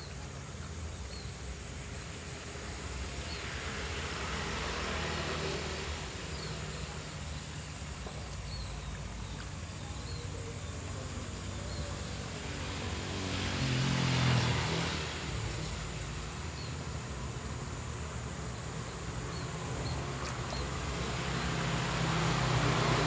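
Motor vehicles passing by, each swelling and fading, one about two-thirds through dropping in pitch as it goes past, with another approaching near the end. Faint short chirps of insects or birds repeat underneath.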